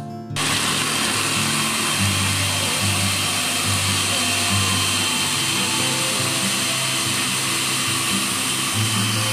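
Electric food chopper motor starting abruptly and running steadily, its blades chopping raw carrots fine.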